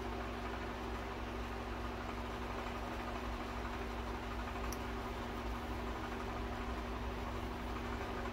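Steady machine hum with an even hiss, unchanging throughout; a faint high tick about halfway through.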